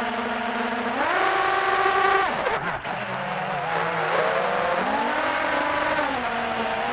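Small multirotor drone's electric motors and propellers buzzing, recorded by its onboard camera. The pitch steps up about a second in, drops steeply around three seconds as the drone dives, then climbs again near five seconds and eases back.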